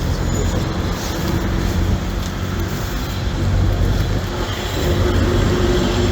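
Steady street traffic noise outdoors, a continuous low rumble of passing vehicles.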